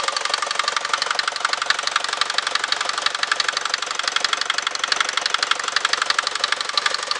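Mercedes-Benz OM601 2.3-litre four-cylinder diesel engine of a Vito 110D running steadily with a loud, rapid, evenly spaced knock over the engine note. The knock is the engine fault being shown.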